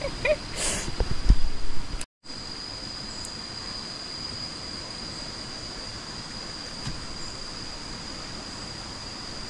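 Insects buzzing on one steady high tone over a soft outdoor hiss. In the first two seconds there are a few loud knocks and thumps.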